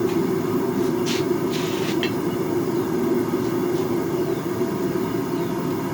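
Steady low roar of a forge running, with two short hisses about a second and two seconds in.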